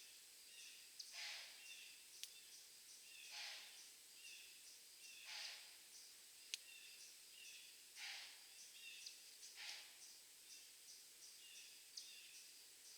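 Faint heavy breathing: five breathy puffs of air, each under half a second, coming roughly every two seconds. Faint short bird chirps repeat in the background, and there are a few sharp ticks.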